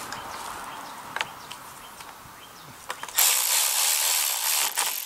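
A ratchet and socket running a bolt down on a small Briggs & Stratton engine: a few light clicks, then about three seconds in a loud, fast high-pitched ratcheting rasp that lasts under two seconds.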